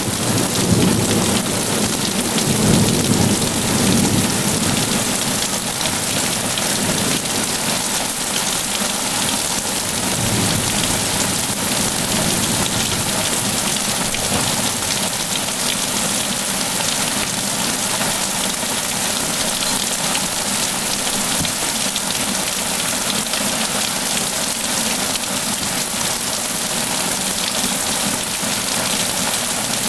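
Heavy rain pouring steadily, with thunder rumbling low during the first several seconds and then dying away.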